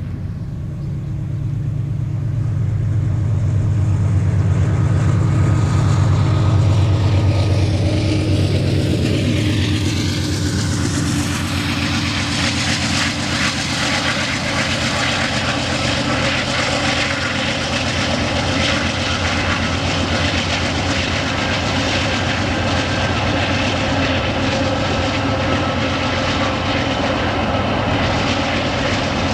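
Diesel-electric freight locomotive with its engine running as it approaches and passes, its pitch falling as it goes by, followed by the steady rumble and rattling clatter of a string of empty iron-ore wagons rolling over the rails.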